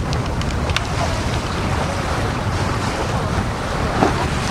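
Wind buffeting the microphone over the rush of water along a sailing yacht's hull, steady throughout, with a few light clicks in the first second.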